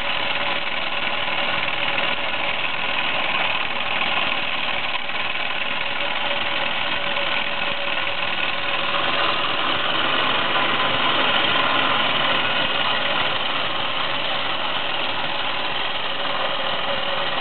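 Meccano MEC1 toy steam engine running steadily under steam, driving twin propeller shafts through a Meccano gear train with plastic pinions: a constant mechanical whirr mixed with hiss, at an even speed throughout.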